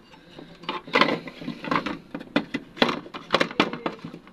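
Irregular clicks, knocks and rattles of a charger's circuit board being handled and worked loose from its plastic case.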